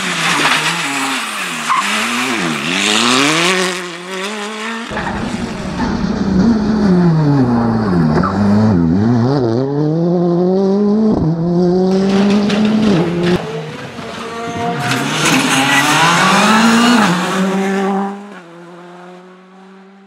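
Rally cars driven hard on a stage: engines revving up through quick gear changes and dropping back under braking, with a sharp crack a little past halfway. The last car fades away near the end.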